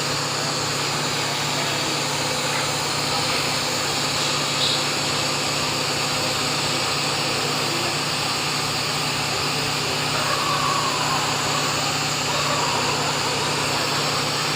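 A machine running steadily: a constant low hum under a broad hiss that does not change.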